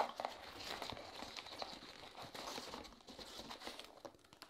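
Hands rummaging through foam packing peanuts and card packs in a cardboard box: a dense rustle and crinkle with many small clicks, opening with a sharp tap and thinning out near the end.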